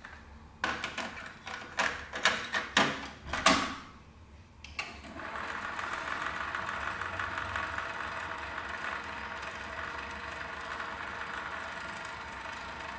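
Kenwood KX-7030 cassette deck: a run of clicks and clunks as the deck is handled and its transport keys pressed, then from about five seconds in the steady whir of the motor and tape rewinding at high speed.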